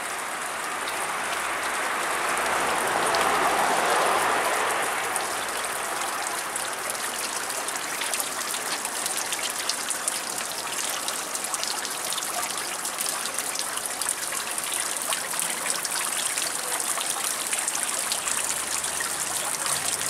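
Water falling from a tiered stone fountain and splashing into its basin, a steady splashing that swells a little a few seconds in.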